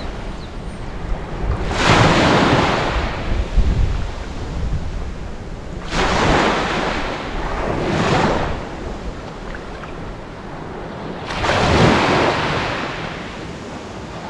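Small waves breaking and washing up the sand at the water's edge: four surges of surf, each starting suddenly and fading away as the water runs up the beach.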